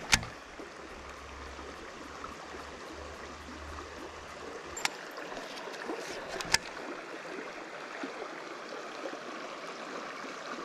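Creek water flowing and trickling steadily over a shallow riffle. A few sharp clicks from handling the baitcasting reel and rod stand out, the loudest just after the start and two more a little past the middle.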